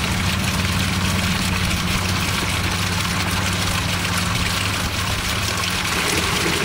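Spring water pouring steadily from a pipe and splashing into a stone basin, over a steady low hum.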